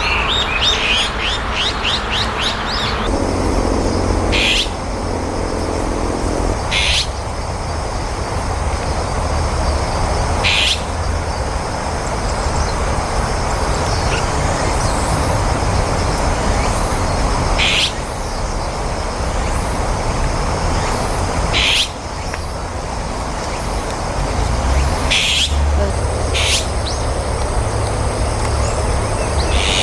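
Azure-winged magpie calls: a quick run of rapid notes at first, then short, harsh calls every few seconds over steady outdoor background noise.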